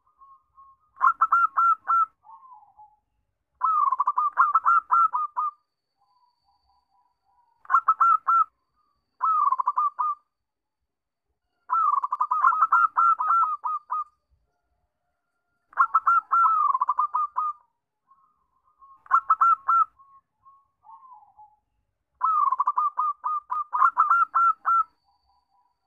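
Zebra dove (perkutut) singing: phrases of quick, staccato cooing notes, each a second or two long, repeated every few seconds with fainter soft coos between.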